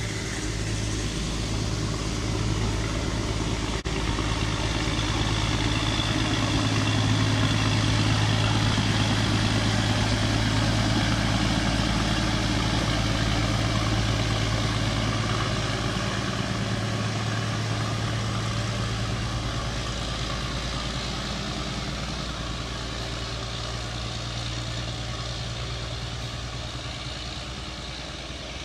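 Class 03 diesel shunter D2128's Gardner eight-cylinder engine running with a steady low drone as it works a rake of coaches past, over the rumble of the coach wheels on the track. It grows louder as the shunter comes by and fades as it moves away.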